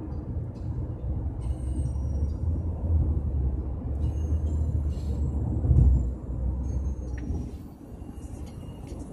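Low road and engine rumble heard inside a moving taxi's cabin, swelling briefly about six seconds in and easing off a moment later.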